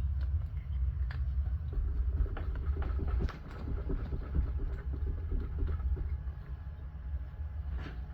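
A steady low rumble that eases a little about three seconds in, with scattered light clicks and knocks from small metal engine parts being handled during a teardown.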